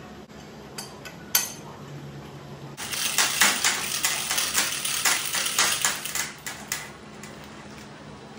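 Steel lifting chain clinking and rattling: one sharp clank about a second in, then a dense run of metal clinks from about three seconds in that eases off near the end.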